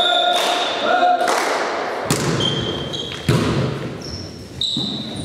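A volleyball bounced on the sports-hall floor twice before the serve, each bounce with a short ringing ping. About two seconds in comes the smack of the serve, followed by further hand-on-ball hits about once a second as the rally goes on, echoing in the hall, with brief squeaks of shoes on the floor.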